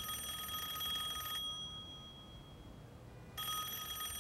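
Telephone ringing in two rings of a trilling, high-pitched tone. One ring ends about a second and a half in, and the next begins about two seconds later.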